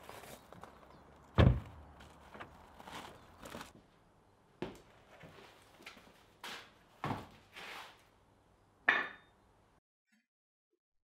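A car door slams shut with a heavy thump, followed by steady footsteps. Then comes another run of footsteps and knocks, and a sharp thud as a taped cardboard parcel is set down on a steel anvil.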